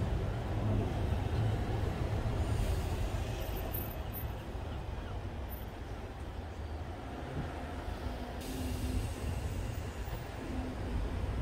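Wind buffeting a smartphone microphone on the upper deck of a moving heritage double-decker tram, over the tram's running rumble. A brighter hiss comes in about eight seconds in.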